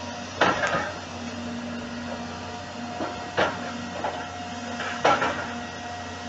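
Demolition excavator breaking down a concrete building: steady machinery drone with three loud crashes of concrete breaking and debris falling, one about half a second in, one midway and one about five seconds in.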